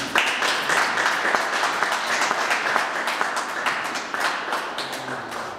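Audience applauding, starting suddenly and thinning out toward the end.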